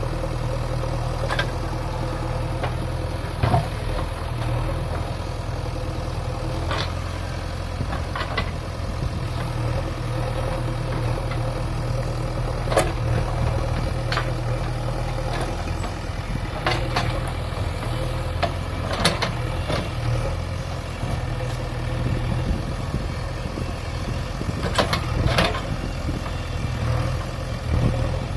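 JCB 3DX backhoe loader's diesel engine running steadily, with sharp metallic clanks now and then, about a dozen over the stretch.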